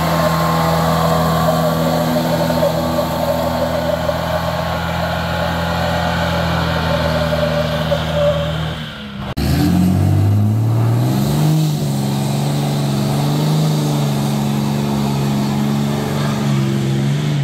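An old Jeep CJ's engine held at high revs in a tire-spinning burnout, a steady note that cuts off about nine seconds in. Then a diesel pickup's engine revs up and holds high in its own burnout.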